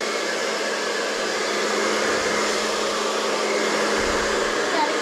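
Handheld hairdryer switched on suddenly and running steadily: an even rush of air with a steady hum underneath.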